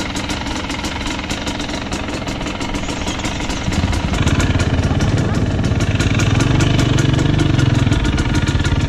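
KTM 250 EXC TPI single-cylinder two-stroke dirt bike engine idling, then opening up and getting louder about four seconds in as the bike rides off.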